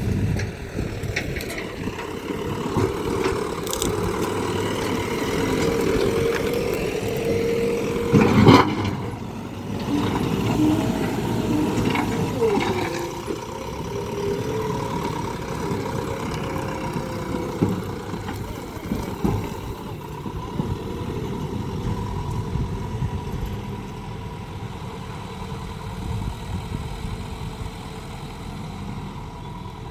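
JCB 3DX Plus backhoe loader's diesel engine running steadily, its level rising and falling a little. There is one loud clank about eight seconds in.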